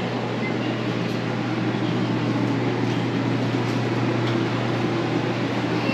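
A steady low machine hum under an even hiss.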